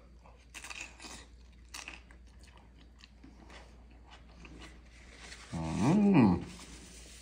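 A crisp fried corn tostada topped with fish ceviche crunching as it is bitten and chewed, with a run of sharp crackles. Near the end comes a loud closed-mouth "mmm" hum that rises and then falls in pitch.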